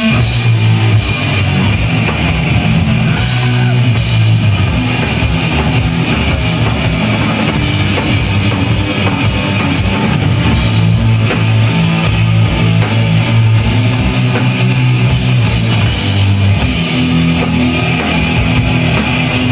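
Heavy metal band playing: drum kit and guitars without a break.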